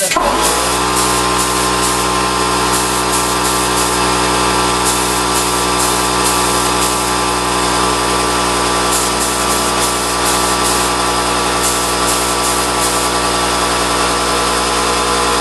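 Electric paint spray gun running steadily while spraying mahogany wood finish: a constant machine buzz with a hissing spray over it. It starts abruptly at the beginning and runs without a break.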